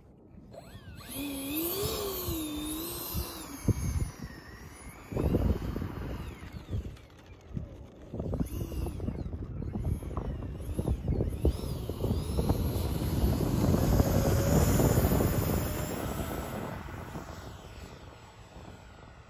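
Electric ducted fan of a Freewing 6S Hawk T1 RC jet spooling up with a wavering whine that rises and falls with the throttle. A rushing sound builds as the jet runs down the runway and takes off, is loudest a little after halfway, then fades as the jet climbs away.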